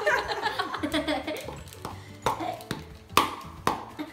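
Laughter and chatter, then four sharp knocks in the second half as a plastic cup is rapped on a stainless steel mixing bowl to empty out flour.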